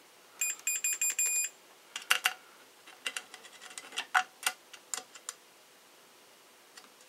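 Digital multimeter beeping: a rapid string of short, high beeps for about a second as the test probes are put on the heating plate's terminals. Scattered light clicks of the probe tips against the metal terminals follow.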